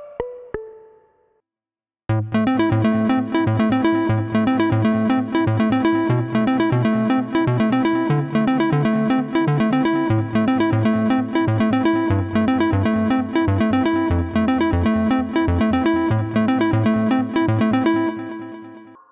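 Roland PROMARS software synthesizer preset playing a fast sequenced pattern of sharp repeated notes over a bass line that steps to new pitches every few seconds. It starts after a brief gap about two seconds in and fades out near the end.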